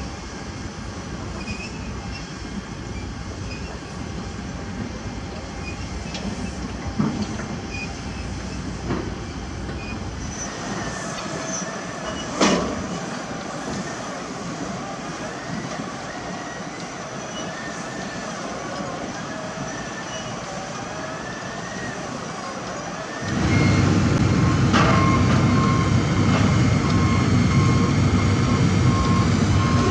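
Heavy diesel construction machinery running, with sharp metal clanks about seven and twelve seconds in. About 23 seconds in, the engine sound jumps much louder and stays there.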